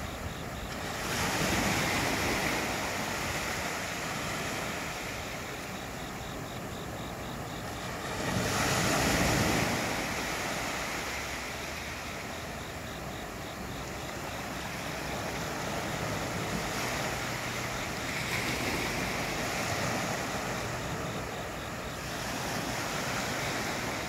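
Small sea waves washing up onto a sandy beach and drawing back, in swells that rise and fall; the biggest comes about eight seconds in.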